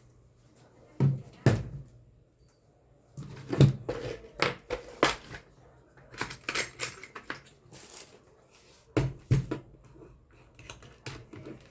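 Irregular clinks, clicks and knocks of small metal tools and parts being handled and set down on a workbench, in several quick clusters.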